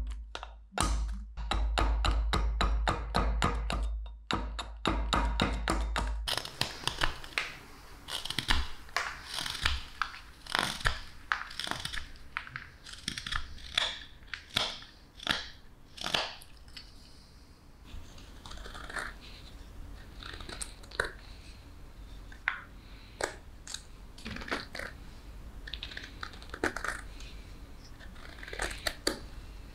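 Carving knife slicing shavings off a wooden spoon blank in short, irregular crisp cuts, each a quick scrape through the wood. Background music plays for about the first six seconds and then stops.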